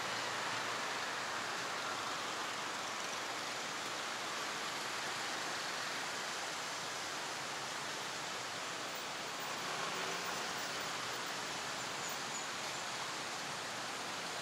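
Steady city traffic ambience from a multi-lane avenue: an even wash of passing cars and scooters with no distinct events.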